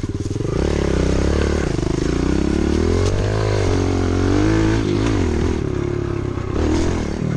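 Small pit bike engine revving up and down as it is ridden, its pitch rising and falling several times.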